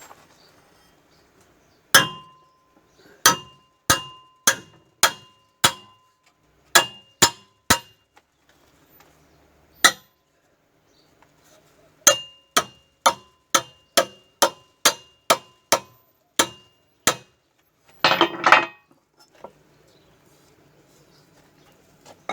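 Hammer blows on a steel tractor exhaust pipe as it is bent to shape, each strike clanging with a brief metallic ring. About twenty strikes come in uneven runs of two or three a second, with pauses between, and a short scraping rattle of metal comes near the end.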